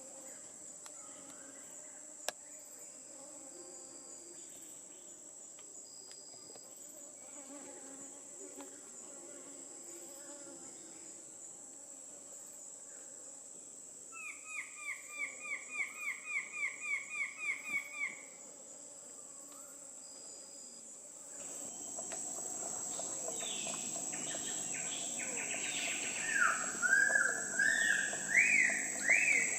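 Steady high-pitched insect drone with bird calls over it: a rapid run of about fifteen short, downslurred notes, about four a second, halfway through, and louder rising whistled notes near the end after the background changes abruptly.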